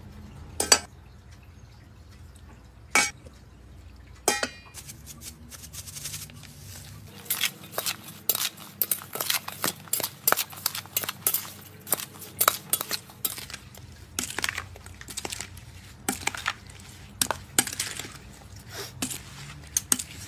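Kitchen utensils clinking and knocking against dishes: three separate knocks in the first few seconds, then a fast, irregular run of clicks lasting about twelve seconds.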